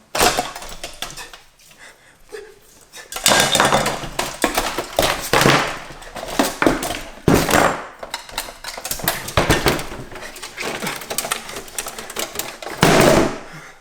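Loud, irregular clattering and knocking of hard objects, in dense runs of many quick impacts with short pauses between them.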